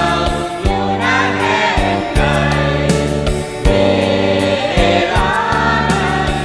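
A song: a group of voices singing a melody over a band backing of long held bass chords and drum hits.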